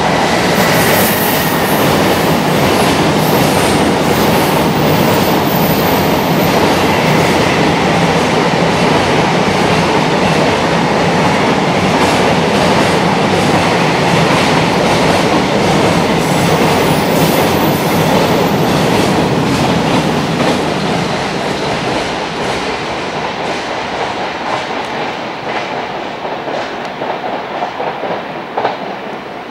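Long container freight train passing at high speed, its wheels clacking over the rail joints in a fast, steady run. The passing noise fades gradually over the last third.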